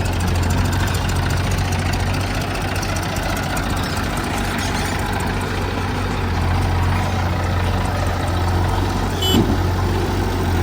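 Heavy diesel engine of a backhoe loader or farm tractor running steadily at a low idle-like hum. A brief high-pitched squeak cuts in about nine seconds in.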